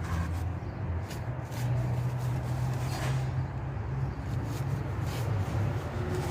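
Steady low mechanical hum, with a few short sharp clicks and knocks of hand tools on metal while an old starter motor is being unbolted from the engine.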